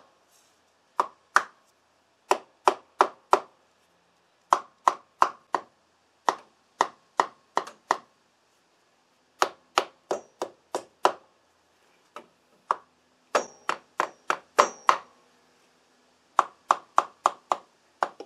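A mallet tapping on the aluminium clutch cover of a Honda VTX1800 engine: sharp taps in short runs of two to five, about three a second, with pauses between. The cover is stuck to the crankcase by its RTV sealant and is being shocked loose.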